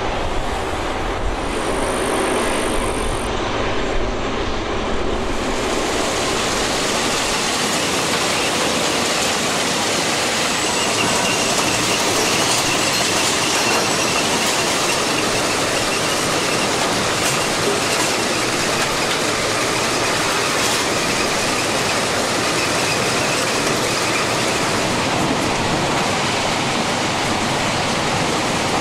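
Plasser & Theurer RU 800 S track renewal machine at work: a steady, dense mechanical clatter of machinery and ballast. It turns brighter and thinner in the bass about five seconds in, and a faint high metallic squeal runs through the middle stretch.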